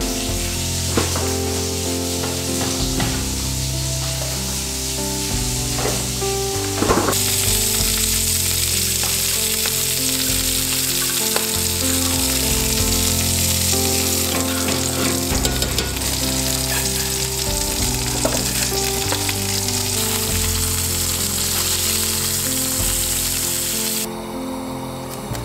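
Food sizzling in a frying pan, a steady hiss that stops near the end, over background music with a slow melody. A few light clicks sound in the first seven seconds or so.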